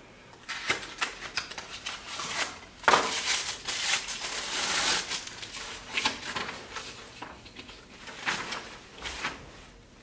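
Light clicks and taps of hands handling vacuum tubes and their cardboard packaging, with a stretch of rustling a few seconds in as the next valve is taken out of its box.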